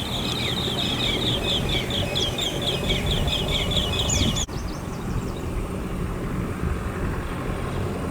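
A bird calling a fast series of short, repeated high notes, about four or five a second, which cuts off abruptly about four and a half seconds in. A low background rumble continues after that.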